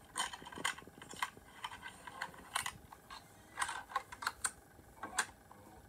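A series of irregular sharp clicks and taps, a dozen or so, bunched in quick runs and uneven gaps.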